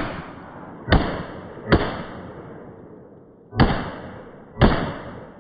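Five Glock pistol shots fired in an uneven string: three within about two seconds, a pause, then two more. Each sharp report trails off in an echo lasting about a second.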